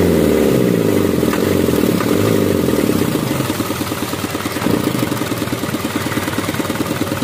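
Isuzu 4HL1 four-cylinder diesel engine revved from the throttle, its pitch falling away in the first couple of seconds, then settling to a steady idle with an even diesel clatter.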